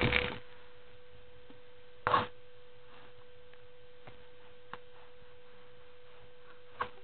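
Steady faint hum at one pitch, with the end of a baby's squeal at the very start and a short breathy noise about two seconds in; otherwise the baby is quiet.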